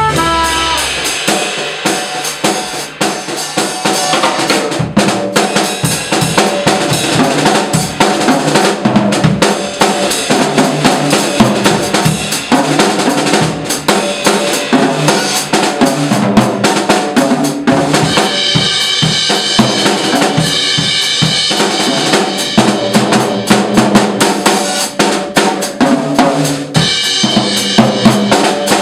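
Jazz drum kit playing a busy swing passage on snare, bass drum and cymbals, with upright bass and electric keyboard accompanying underneath. A held trumpet note ends in the first second.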